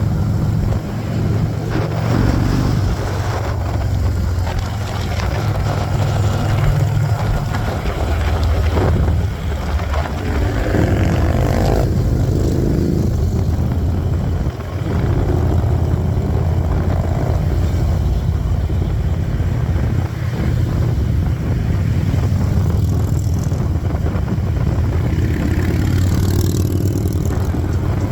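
Motorcycle engines running steadily on a group ride, a continuous low rumble with small rises and dips in level.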